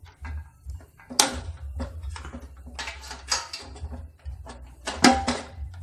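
Clicks, knocks and rattles of plastic and metal parts being handled as the carburettor and fuel-tank unit of a Swingfog SN50 fogging machine is worked loose and lifted off. Two sharp knocks, about a second in and near the end, are the loudest.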